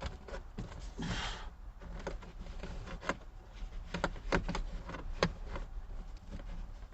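New carpet being worked and tucked under the plastic interior trim by hand: a brief scraping rustle about a second in, then scattered light knocks and clicks from the trim.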